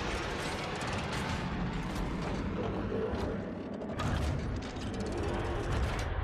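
Cinematic sound design over music: dense mechanical clicking and ratcheting with a low rumble underneath, and a sudden heavier hit about four seconds in.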